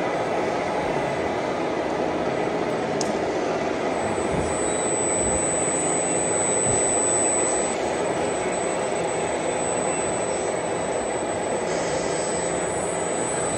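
Steady engine-like drone mixed with reverberant hall noise. There is a single click about three seconds in, and a thin high whine comes in about four seconds in.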